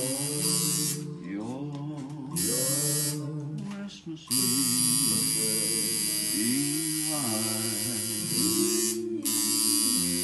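Coil tattoo machine buzzing in stop-start runs, switching on and off sharply, the longest run from about four to nine seconds in, over background music with a sung melody.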